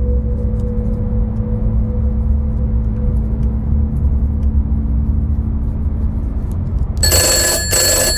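A low, steady drone, then about seven seconds in an old desk telephone's bell starts ringing loudly, in a run of rings with two short breaks.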